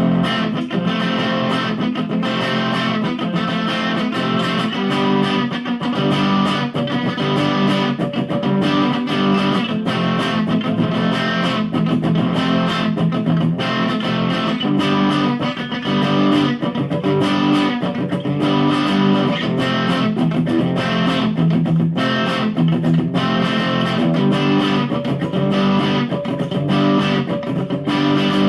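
Electric guitar played through a Line 6 POD Pro amp modeler, chords strummed and picked without a break.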